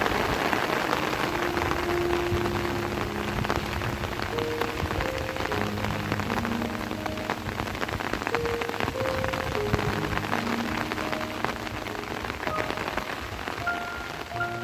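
Steady rain falling, starting suddenly, with many fine drop strikes. A soft melodic background music track plays over it.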